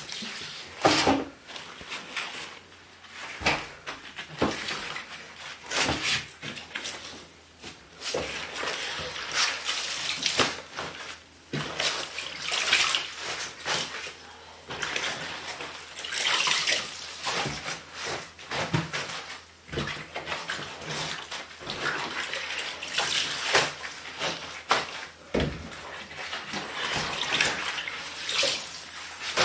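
Halved napa cabbages being lifted out of salt brine and turned over into another basin by rubber-gloved hands, partway through salting for kimchi. Brine splashes and drips, and wet leaves rustle against each other in irregular bursts.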